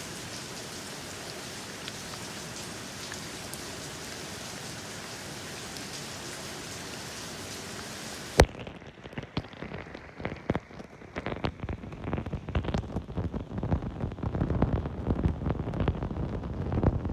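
Steady rain hiss that cuts off abruptly about halfway, with a click, into a duller rain sound with irregular low surges that grow louder toward the end.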